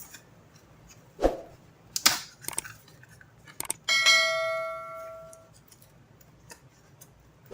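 A few sharp clicks and knocks of handling, then about four seconds in a single bright, bell-like metallic ring that fades away over about a second and a half.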